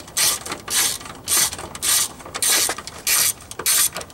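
Hand ratchet clicking in quick, even back-and-forth strokes, about seven in four seconds, as it backs out one of the three upper strut mount bolts on a front strut.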